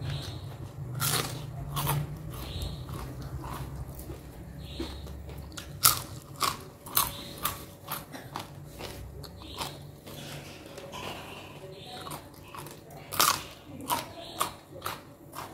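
Close-miked crunching bites and chewing of raw vegetables: a string of sharp, separate crunches, the loudest about six seconds and thirteen seconds in, with chewing between them.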